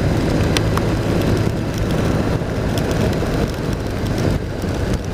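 BMW R1200 RT-P's boxer-twin engine running steadily under way, with wind rushing over the microphone and a few sharp ticks.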